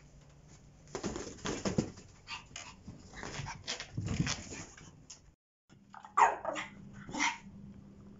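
Pomeranian giving a few short, sharp barks in the second half, the loudest about six seconds in. Before that there are light scuffling noises as it plays with a balloon on the carpet, and the sound drops out briefly about five seconds in.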